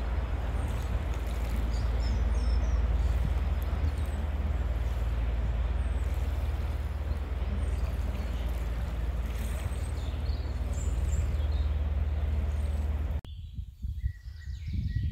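Passenger river ship's engines running with a steady low drone over rushing river water as the ship passes. About 13 seconds in the sound cuts off abruptly to quieter woodland with a few faint bird chirps.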